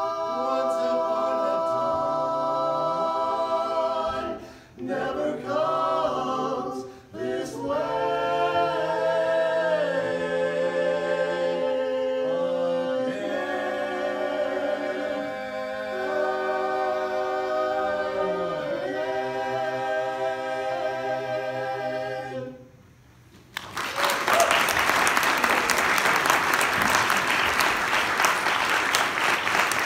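Male barbershop quartet singing a cappella in four-part harmony, holding long sustained chords as the song closes. The singing stops about three quarters of the way through, and after a brief pause the audience applauds.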